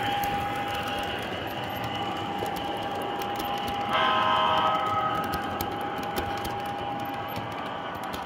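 O-scale three-rail model passenger train, an Atlas F40PH diesel with silver passenger cars, rolling past: metal wheels tick quickly and unevenly over the track under a steady tone. About four seconds in, a louder cluster of steady tones sounds for about a second.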